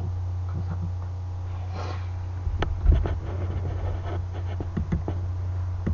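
Steady low hum under scattered clicks and knocks of hand handling, with one dull thump about three seconds in, as a hand reaches toward the laptop's built-in microphone.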